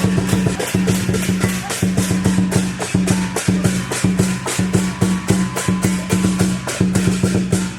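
Percussion music: rapid, even strikes in a steady beat over a low held tone that breaks off briefly every second or so.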